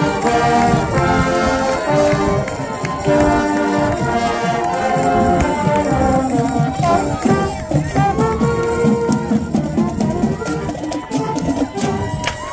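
Marching band playing a tune on trombones, other brass and saxophones. The held horn chords are strongest in the first half and turn looser and thinner later on.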